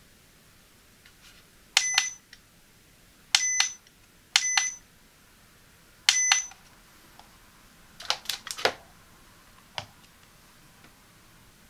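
ACCUTECK digital postal scale giving four short electronic beeps as its front button is pressed, each beep opening with a click. A couple of seconds later comes a brief clatter of light plastic knocks as a tape measure is set down on the scale's platform.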